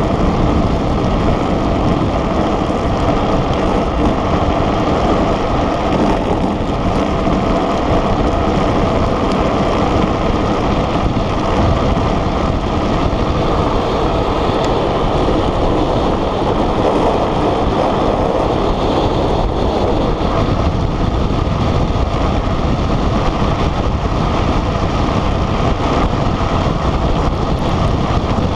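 Steady, loud rush of wind over the microphone mixed with the road noise of a gravity speed trike's wheels rolling fast on asphalt.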